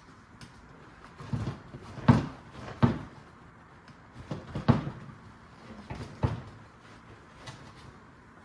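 A tight part being worked back and forth and pulled off a pickup's bench seat: a string of irregular knocks and clunks, the loudest about two, three and five seconds in.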